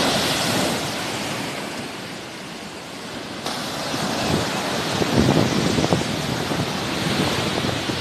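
Sea waves washing onto the shore: a wave breaks at the start and fades, and the surf swells again after about three and a half seconds. Wind gusts buffet the microphone in the second half.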